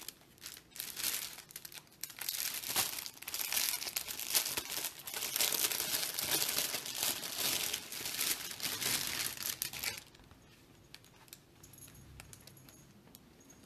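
Thin plastic packaging crinkling and rustling as a fabric tote bag is pulled out of its plastic wrap, dense and continuous for about ten seconds, then stopping and leaving only a few faint clicks.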